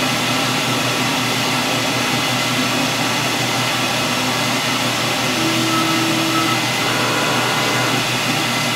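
Small metal lathe running, its spindle turning while a carbide insert takes an automatic stepper-fed outside-turning pass along a metal shaft: a steady whirring machine noise. A brief higher tone joins for about a second a little past the middle.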